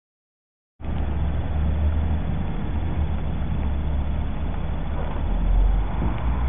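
Silence for under a second, then a steady low rumble of outdoor background noise starts abruptly and runs on, with no distinct barks or other clear events.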